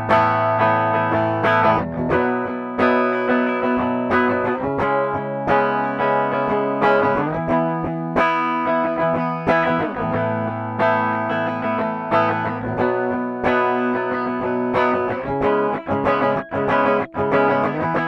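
Schecter C-1 Elite electric guitar played on its bridge pickup with a clean tone and no effects. Chords and single notes are picked continuously and left ringing.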